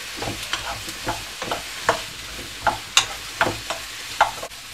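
Wooden spatula clacking and scraping against a wide non-stick pan as sliced mushrooms and red onion are stirred, about twice a second and irregular, over a light sizzle of frying in oil. The mushrooms have given up their water and are starting to fry.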